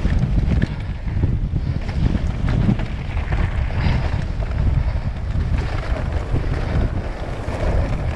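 Wind buffeting the microphone over the rumble and rattle of a mountain bike's tyres and frame running fast down a rutted dirt track. The sound is a continuous, heavy low rushing with small knocks from the bumps.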